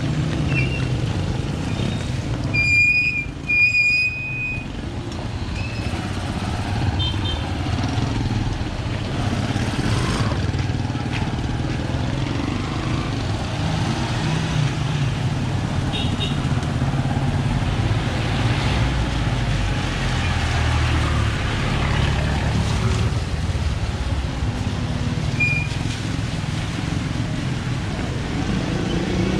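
Street traffic with motorcycles and other motor vehicles running and passing, a steady engine rumble throughout. A horn beeps twice about three seconds in.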